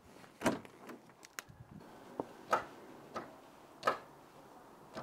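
Glow-plug override solenoid clicking as the push button is worked: a series of sharp clicks, the loudest about every one and a half seconds, with fainter ones between. The clicking confirms that the relay is now switching power to the glow plugs.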